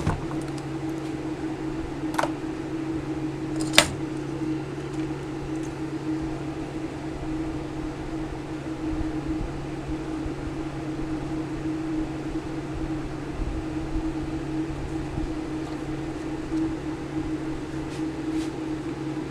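Steady mechanical hum of a small electric fan running, with two light clicks a couple of seconds in.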